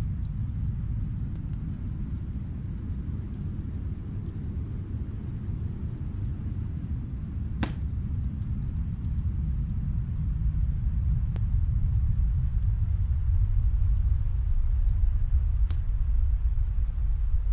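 Wood fire crackling in a fireplace, small scattered crackles with a sharper pop about eight seconds in and another near the end, over a steady low rumble that grows a little louder toward the end.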